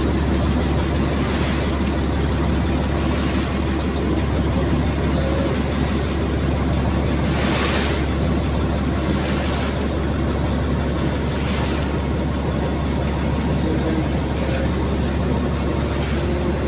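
Steady low drone of a boat's engine heard from on board, with a few brief hisses about halfway through.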